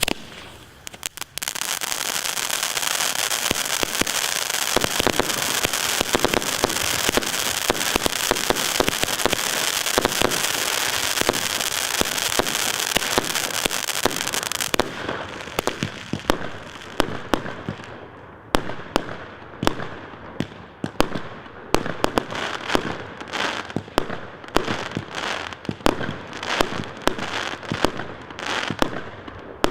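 Consumer firework battery ('Russian Salute') firing. For about the first half, a dense continuous hiss and crackle runs under rapid shots. From about halfway it becomes a quick string of separate sharp bangs, several a second.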